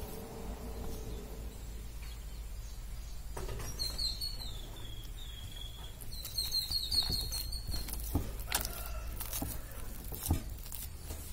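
A hand kneading flour dough in a glass bowl, with soft rubbing and a few knocks of hand and dough against the glass toward the end. Two runs of high, wavering chirps come about three and a half and six seconds in, over a steady low hum.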